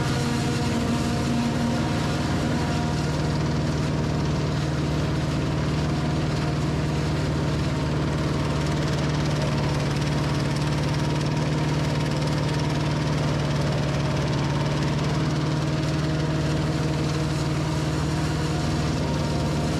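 Forage harvester's diesel engine and drives running steadily under load while chopping corn, a constant deep hum with an even mechanical noise over it.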